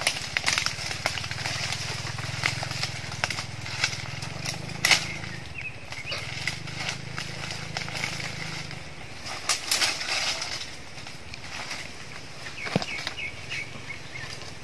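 Leaves and twigs rustling, with scrapes and sharp knocks and cracks, as a man climbs a tree trunk through the undergrowth; the loudest knock comes about five seconds in and a cluster of cracks near ten seconds. A low steady rumble runs underneath.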